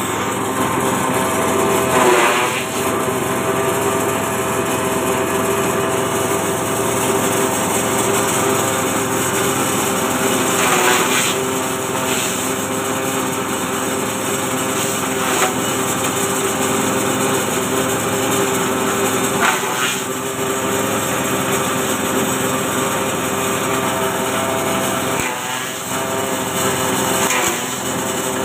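Multy JG30 forage chopper running steadily with a constant motor hum while chopping green grass stalks fed into its hopper; the cutting noise swells briefly several times as fresh bundles go into the blades.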